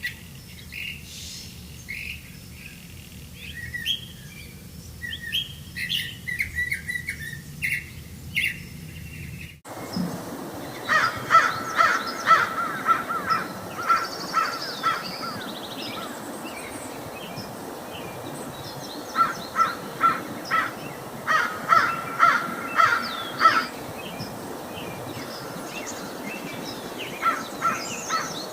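Wild birds chirping and calling. About a third of the way in the recording changes abruptly to a different one, where birds give bursts of rapid repeated notes in several runs over a steady outdoor hiss.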